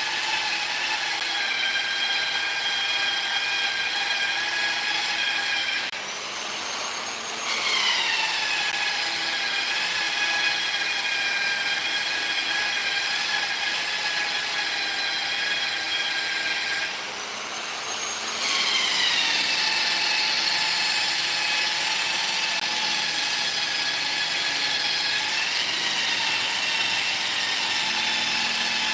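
Electric power tool whining steadily as it works wood. Twice the whine briefly drops out and returns higher in pitch, sliding down as the tool takes the load again.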